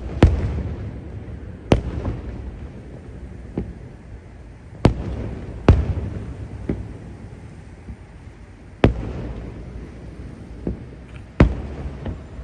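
Aerial firework shells bursting: a string of about ten sharp booms at irregular intervals, each trailing off in a low rumbling echo.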